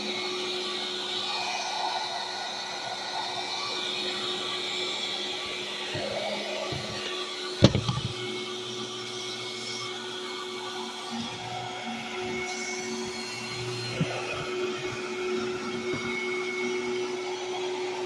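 Eureka Rally Powerline Gold 3948 canister vacuum cleaner running steadily: an even rush of air with a steady hum. A single sharp knock sounds a little under halfway through.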